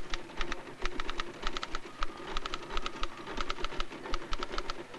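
Typebar typewriter being typed on fast: sharp key strikes in quick irregular runs with short pauses.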